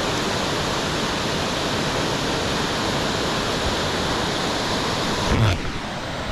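Waterfall roaring as a steady, dense rush of falling water, heard close up. About five and a half seconds in, a brief louder sound cuts through, and after it the water noise is a little lower.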